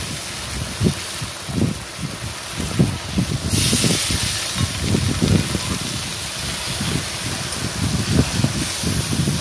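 Potatoes, aubergine and spice paste sizzling in hot oil in a wok. About three and a half seconds in, a loud steady hiss starts as water hits the hot oil and steam rises, with irregular low thumps underneath.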